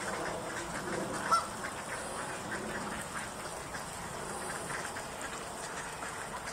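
A large flock of Canada geese on the water calling, with many overlapping honks and one louder honk about a second in.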